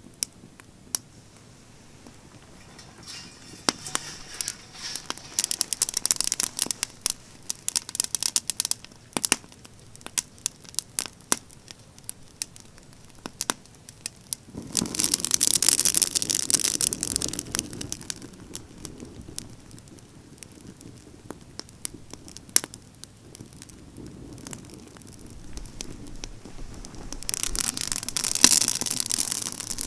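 Campfire of pine branches crackling and popping, with sharp snaps throughout. Three times the burning swells into a dense, louder rush of crackling as the wind fans the flames.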